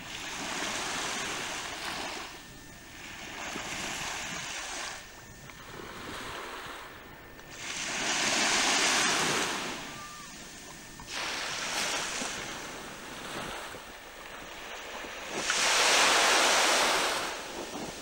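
Wind and sea water rushing over a camcorder microphone, rising and fading in gusty swells every couple of seconds, loudest about eight and sixteen seconds in.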